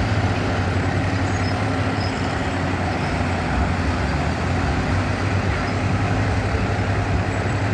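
Diesel engine of a Priestman VC20 long-reach excavator running steadily, with a constant low drone.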